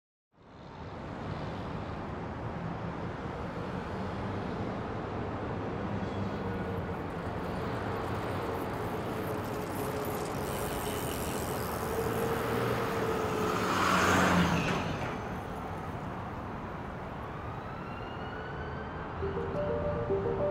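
Steady road-traffic noise fades in. Near the middle it swells and falls away as a vehicle passes close by. Music tones begin near the end.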